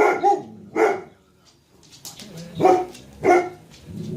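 German Shepherd barking: single barks at uneven intervals, with a pause of over a second in the middle, then two more barks close together.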